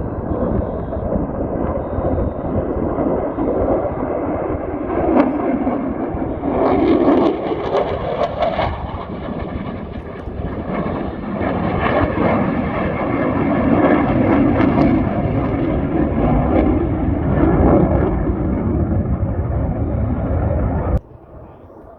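F-35 fighter jet's engine, loud and continuous, swelling and easing, then cut off suddenly about a second before the end.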